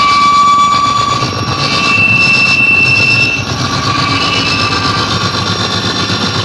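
Experimental noise recording: a loud, dense wall of noise with a low rumble and high, held screeching tones that waver slightly in pitch and fade in and out.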